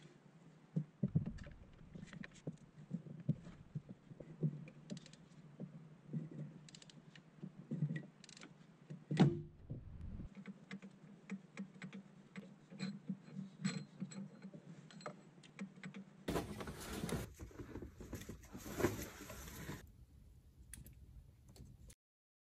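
Socket wrench and metal tools clicking and clinking irregularly while the upper starter motor bolt is undone on a VW 1.9 TDI, over a faint steady hum. Near the end there are a few seconds of louder hissy noise.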